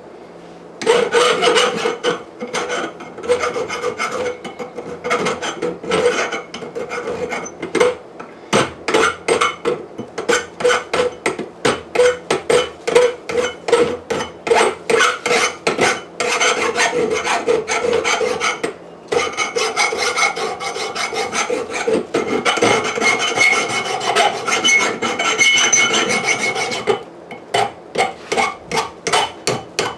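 Rhythmic rasping strokes of an abrasive tool on the steel edges of an anvil, about one to two a second, over a steady hum. The strokes pause briefly about eight and nineteen seconds in. This is the sound of the anvil's sharp edges being smoothed down.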